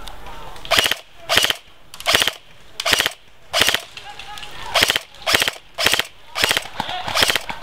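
M4-style airsoft rifle firing about a dozen short bursts in quick succession, each a fast rattle of several shots, the bursts a little under a second apart.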